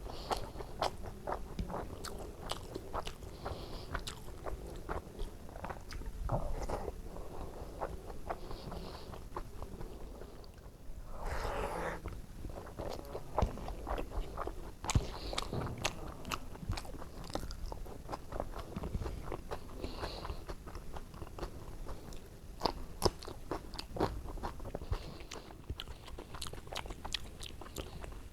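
Close-up chewing and mouth sounds of a person eating white rice with oily brinjal curry: a steady run of small wet smacks and clicks. About halfway through there is a brief, louder rush of noise lasting about a second.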